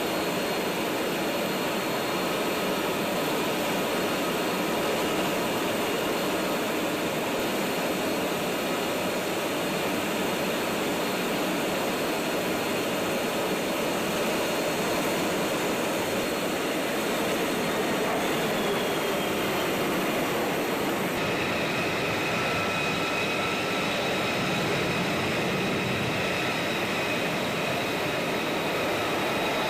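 Steady jet noise from F-35 Lightning II fighters, each with a single Pratt & Whitney F135 afterburning turbofan, flying overhead. The sound's character changes abruptly about two-thirds of the way through.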